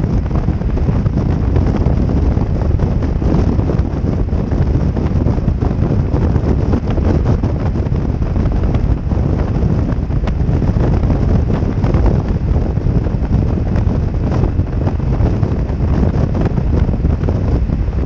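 Wind buffeting the microphone of a camera on a motorcycle riding at road speed: a steady, loud rumble with no break.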